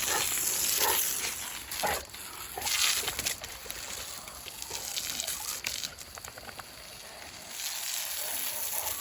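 Water spraying and splashing onto muddy ground as dogs play in the stream, louder in the first few seconds and easing off later.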